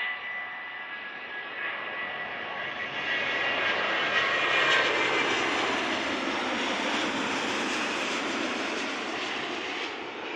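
Boeing 787 Dreamliner's jet engines passing by: a high whine of several steady tones over a rushing noise that grows loudest about four to five seconds in. The whine then drops in pitch and the sound eases into a broad, slowly fading rumble.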